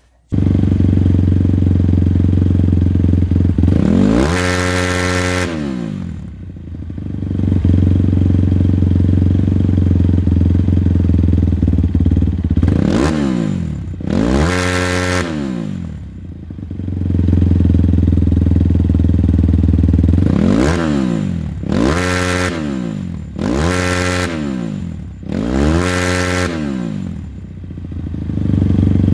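Kayo K6-R 250's single-cylinder four-stroke engine idling with throttle blips: one long rev, then a pair, then five quick revs in a row, each rising and falling back to idle. The engine is running cold, just fitted with an advanced timing key, and revs up quickly.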